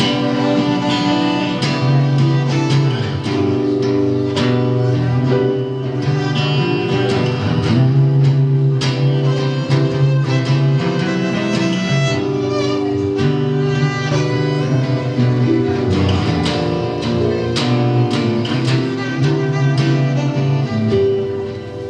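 Live band playing an instrumental passage: plucked guitar notes over long held notes.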